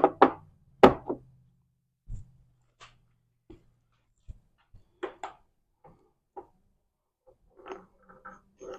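Metal transmission parts (gears, washers, bearings) knocking and clinking as they are taken off the shaft and set down. A few loud knocks come in the first second, then lighter scattered clicks and rattles.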